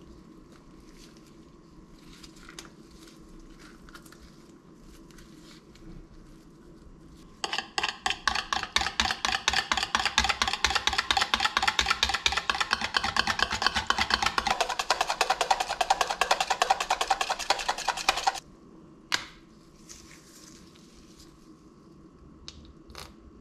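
Wire whisk beating cream in a bowl: rapid, even strokes clicking against the bowl for about ten seconds, starting about a third of the way in and stopping abruptly. A few single clicks follow near the end.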